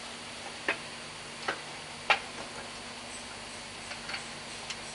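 Sharp metallic clicks and taps of hands and fasteners on a steel engine guard cover as it is refitted: three clear clicks in the first two seconds, the third the loudest, then a few lighter ticks near the end, over a faint steady hum.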